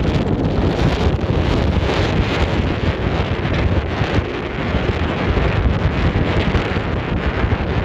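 Wind buffeting the microphone, a loud, steady rushing noise with a fluttering low rumble.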